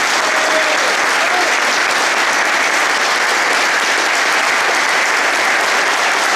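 A group of people applauding steadily, a dense, even clapping that holds at one level throughout.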